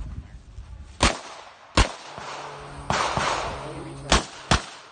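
Four 9mm pistol shots from a Glock 17. The first two come about a second in, three-quarters of a second apart, and a quicker pair follows near the end. A stretch of rushing noise lies between them, about three seconds in.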